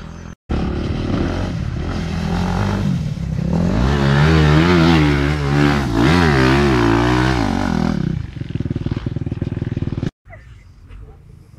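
Motocross dirt bike engine revving hard, its pitch swinging up and down rapidly as the bike is worked out of a rut, then settling to a lower, steadier note. It cuts off suddenly near the end, leaving only faint distant sound.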